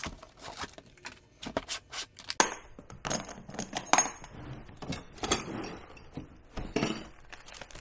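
A hard plastic tool carry case being unboxed and opened: it is slid out of its cardboard sleeve, then its plastic latches are snapped open and the lid is lifted. A string of sharp plastic clicks and knocks, the loudest about two and a half and four seconds in, with rustling and scraping between them.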